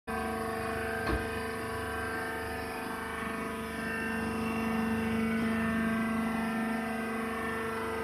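Hydraulic wood shavings baler running with a steady machine hum, its motor-driven pump holding a constant pitch, with a single knock about a second in.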